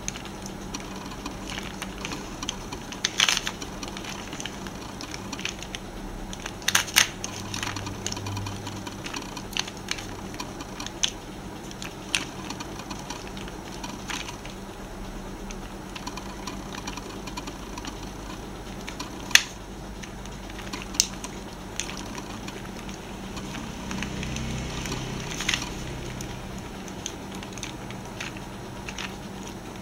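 Plastic pieces of a pyramid-shaped twisty puzzle clicking and scraping as its layers are turned by hand, with scattered sharp clacks a few seconds apart.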